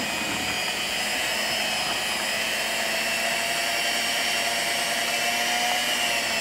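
Electric hand mixer running steadily, its beaters mixing cake batter, with an even whine that holds level throughout.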